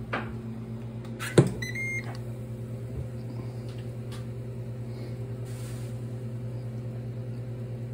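Ninja Foodi indoor grill in air-crisp mode running at 390°F, its fan giving a steady hum. About a second and a half in its lid shuts with a sharp knock, followed by a short electronic beep.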